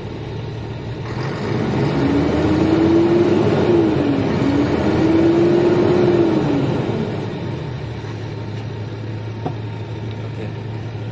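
Renault Premium truck's DCi six-cylinder diesel engine revved from idle up to about 2,000 rpm in two swells, then dropping back to a steady idle, heard from the cab.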